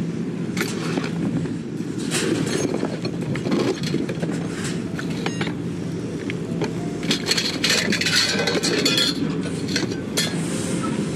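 Hard metal and glass objects clinking and clattering as junk is picked through, in many short bursts that are busiest past the middle, over a steady low rumble.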